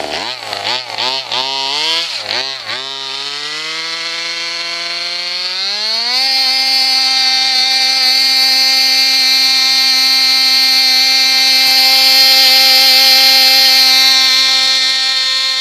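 RC car's motor blipped about five times, then winding up over about three seconds into a steady high-pitched whine held at full throttle.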